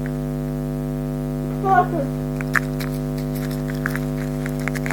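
Steady electrical hum with several even tones, with a few light clicks of handling over it from about halfway through. A short falling vocal sound is heard about a second and a half in.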